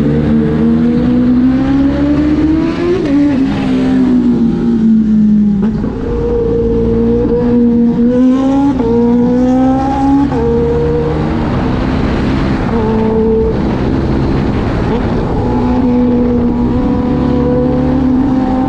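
Kawasaki Ninja H2's supercharged inline-four engine, heard from the rider's seat while riding, its pitch rising and falling several times as the throttle opens and closes, over a steady rush of wind noise.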